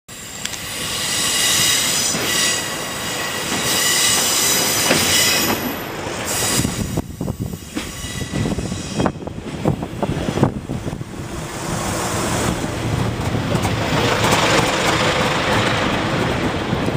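A Class 142 Pacer diesel railbus arriving and passing close by. For the first six seconds its wheels squeal in high, steady tones. Then come sharp clicks of the wheels over the rail joints, and the running noise swells as the unit draws level.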